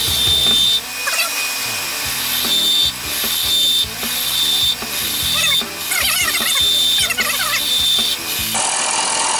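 Wood lathe spinning a pen blank while a skew chisel cuts it, played back at four times speed: a high whine that drops out and returns several times over a steady cutting noise.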